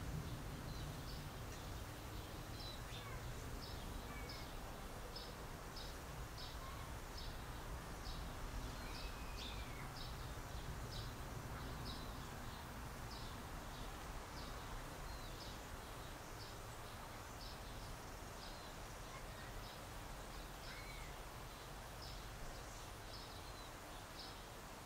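Faint garden ambience: birds giving short high chirps over and over, roughly once a second, with a few lower curving calls, over a steady low rumble.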